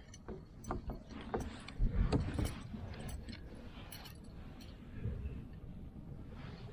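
Scattered clicks, taps and a few low thumps of fishing gear and a freshly landed kokanee being handled in a kayak, the loudest knocks about two seconds in.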